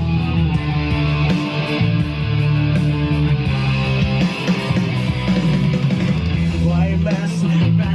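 A rock song with guitar played loud through a JBL PartyBox 100 portable Bluetooth party speaker with its bass boost switched on, the low end heavy and booming.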